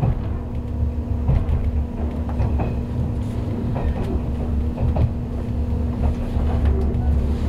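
Japanese 485 series electric train running, heard from inside the passenger car: a continuous low rumble of the wheels on the rails with a steady hum under it and scattered short clicks.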